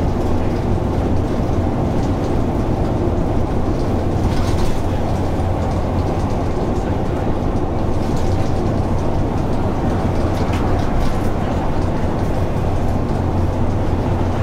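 Dennis Dart single-deck bus in a bus simulator, its diesel engine running steadily with a low drone and road noise as it drives, heard from inside the saloon. Brief faint rattles come about four and a half seconds in and again around ten seconds in.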